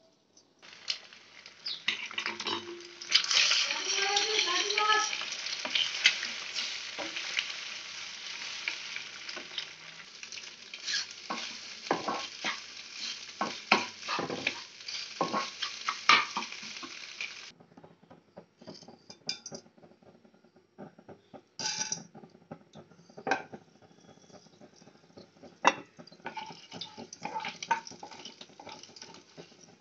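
Egg frying and being stirred with a spatula in a nonstick kadai: a loud, steady sizzle with frequent scraping clicks. About seventeen seconds in, the sizzle cuts off to a quieter stretch of scattered spatula knocks, with a faint sizzle of fenugreek seeds and garlic in hot oil near the end.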